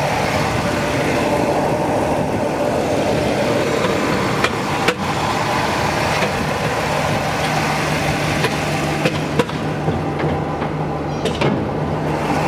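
1965 Pontiac GTO's 389 V8 idling steadily under the open hood, with a few short clicks about halfway through.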